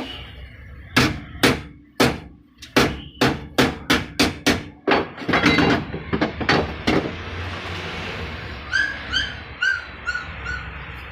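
Hammer blows on sheet metal, a run of sharp strikes about two or three a second lasting about six seconds. Near the end come about six short, high chirps.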